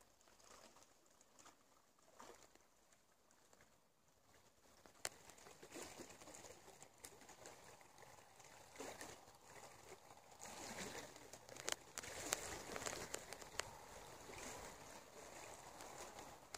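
Faint rustling with scattered light clicks, as of footsteps and handling on a forest path. Near silent at first, it picks up about five seconds in and grows louder after about ten seconds.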